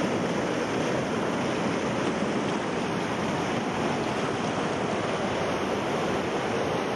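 White-water river rapids rushing over rocks: a steady, even rush of water.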